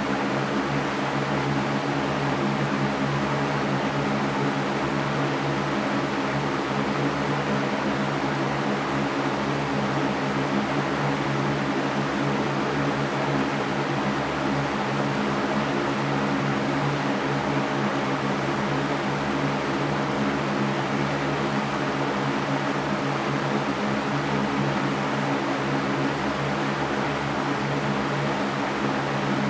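Electric fan running steadily: a constant airy whoosh over a low, even motor hum.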